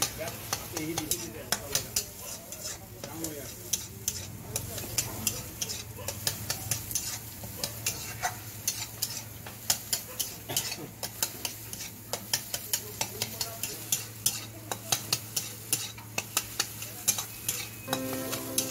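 Steel spatula stirring and scraping scrambled egg in a small frying pan, with many quick metallic clicks and taps over a steady sizzle of frying. Music with steady tones comes in near the end.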